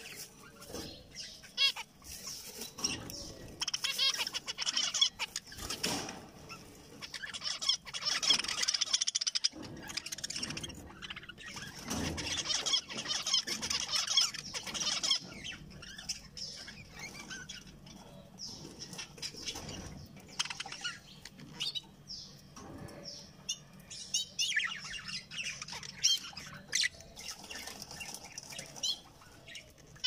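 Caged zebra finches calling and chattering: many short, repeated high calls through the whole stretch, with occasional wing flutters.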